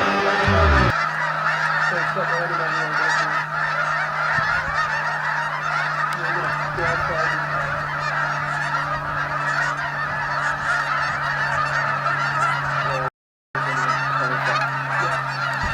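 A large flock of geese honking continuously in a dense, overlapping clamour, over a steady low hum. The tail of music fades out in the first second, and the sound cuts out briefly near the end.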